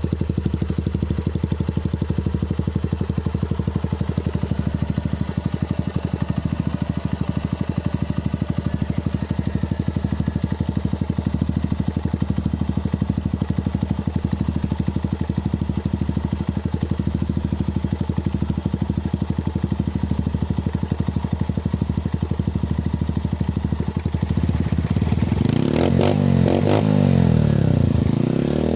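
Honda TMX single-cylinder four-stroke motorcycle engine running through an open bullet-pipe, curve-type muffler, idling steadily with a fast even beat. About 24 seconds in it is revved up and down several times, louder.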